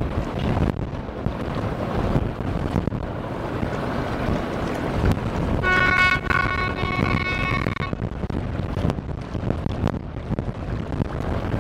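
Wind buffeting the microphone over the rush of water around a container ship's bow wave. About halfway through, a steady high-pitched tone with overtones sounds once for about two seconds.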